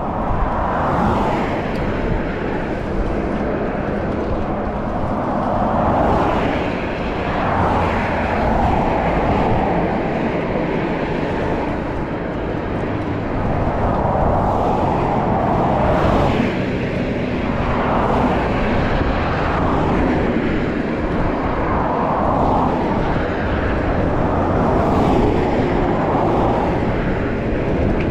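Wind rushing over the microphone while riding along a road, with passing vehicles swelling past again and again.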